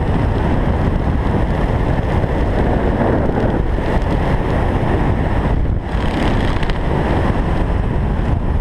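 Steady wind rushing over a helmet camera's microphone as a skydiver flies a parachute canopy down to the landing field, easing for a moment about six seconds in.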